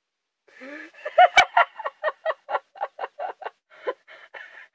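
High-pitched cackling laughter, a quick run of short 'ha' pulses at about five a second, with a sharp click about a second and a half in.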